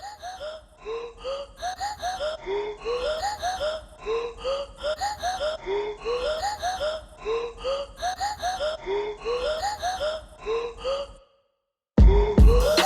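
Background music: a repeating pattern of short rising, breathy vocal-like sounds in an even rhythm. It breaks off for under a second and then a louder track with a heavy beat comes in near the end.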